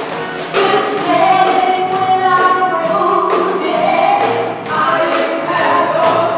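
Live gospel song: several women singing together through microphones, backed by a live band.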